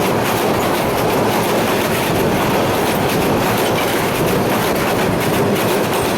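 Kurigram Express passenger train running at speed on the rails: a steady, loud noise of wheels on track with fast, continuous clicking of the carriages passing over the rail joints.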